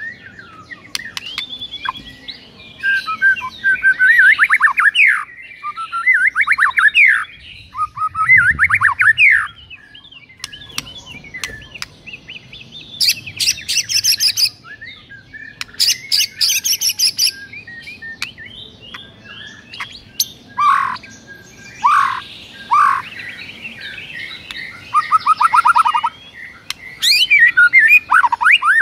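White-rumped shama (murai batu) singing a long run of varied phrases: fast trills, whistled glides and bursts of sharp clicking notes, broken by short pauses.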